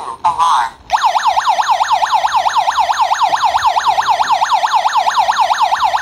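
The built-in siren of a wireless Wi-Fi home security alarm hub is sounding, tripped by its PIR motion sensor on zone 2. It is a loud, fast warbling wail that sweeps up and down about five times a second, starting about a second in after a few short chirps.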